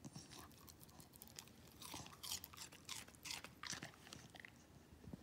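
Welsh terrier chewing a piece of raw cucumber: a run of crisp crunches, about two or three a second.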